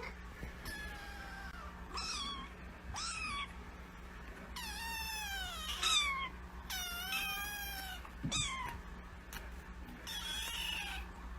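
A kitten meowing repeatedly: about eight high-pitched meows, two of them long and drawn out, over a steady low hum.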